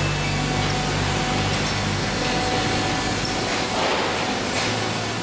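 Heavy machinery running: a steady engine drone under a wide, even mechanical noise.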